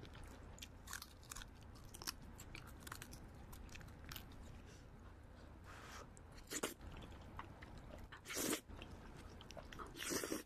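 Close-up mouth sounds of eating: crunching and chewing crispy fried chicken, then three louder slurps of creamy carbonara noodles in the second half.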